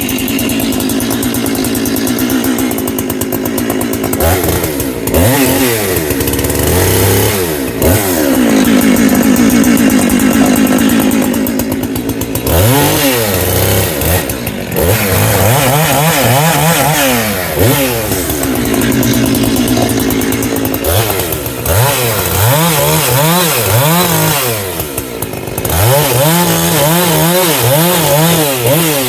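Husqvarna X-Torq two-stroke chainsaw, a 365 converted to 372XP spec, running at high revs through cuts. Its pitch repeatedly dips under load and climbs back, with a run of quick rev drops and pick-ups near the end.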